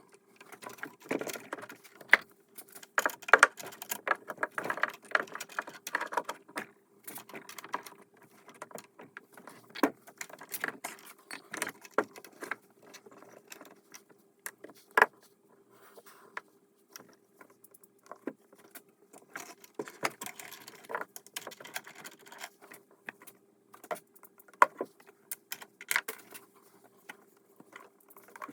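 Metal hand tools and engine parts clicking and clinking in irregular bursts, as when working on a diesel engine's intake manifold, over a faint steady hum.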